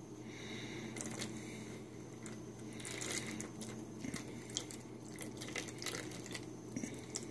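Gelatin mixture poured from a cup into a silicone donut mold: a faint trickle with small drips and splashes, scattered soft clicks, over a low steady hum.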